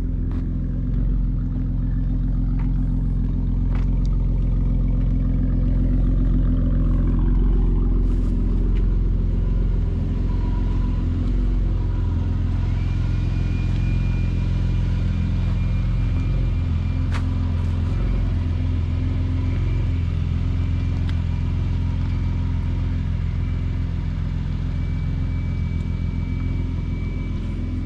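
Car engine running steadily at idle, a low steady hum. A faint high steady whine joins it about halfway through.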